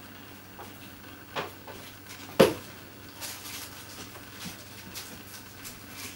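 A few knocks and taps, the loudest about two and a half seconds in, followed by lighter taps, over a faint steady hum.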